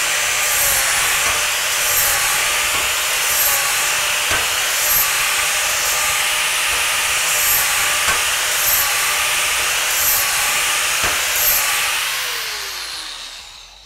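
Angle grinder with a flap disc grinding the burrs off freshly cut metal edges, running steadily. Near the end it is switched off and winds down with a falling whine.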